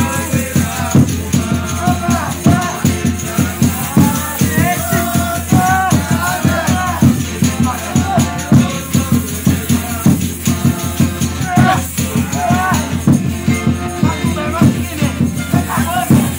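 Live Folia de Reis music: a drum keeping a fast, steady beat with a tambourine jingling, and voices singing over it.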